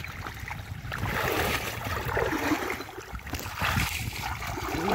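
Muddy shallow water sloshing and splashing as a person wades and gropes through it with his hands, over a steady low rumble.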